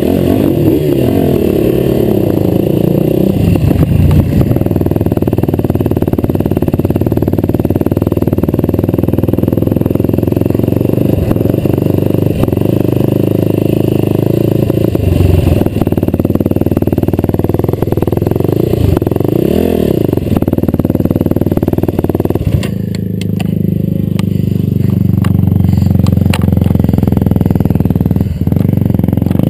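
Racing quad (ATV) engine running, heard close up from the machine itself, its pitch rising and falling with the throttle; about three-quarters of the way through it settles to a lower, steadier note.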